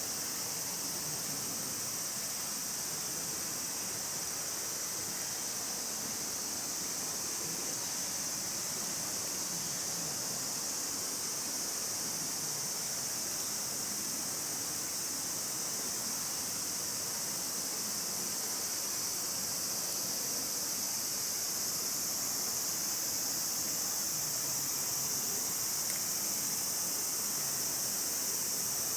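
Steady outdoor ambience: a continuous high-pitched insect drone, unchanging throughout, over an even low hiss.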